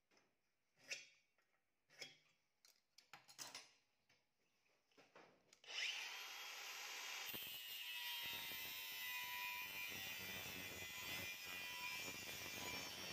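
A few light clicks and knocks of tools being handled, then about halfway through an angle grinder with a cut-off disc starts up and cuts into a steel bar, a loud steady grinding that runs on.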